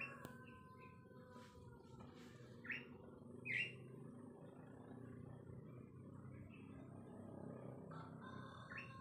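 Faint rooster crowing: one drawn-out crow in the first second and a half and another starting near the end. A few short, high chirps come in between, over a low background hum.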